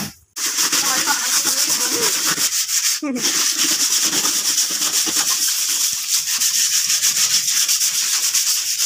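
Plywood being hand-sanded with sandpaper by two people at once: fast, continuous scratchy back-and-forth strokes, starting just after the beginning and pausing briefly about three seconds in. This is surface preparation for repainting the repaired wood.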